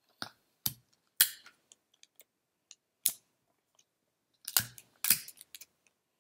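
Clear sticky tape being pulled off and torn for taping paper pieces on, with paper handling, in a series of short sharp bursts that come in two clusters, about a second in and near the end.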